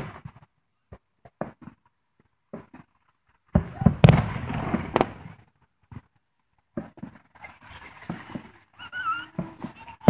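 Aerial fireworks going off: a few small scattered pops, then a loud bang about three and a half seconds in followed by about a second of crackling, then more scattered crackles and pops toward the end.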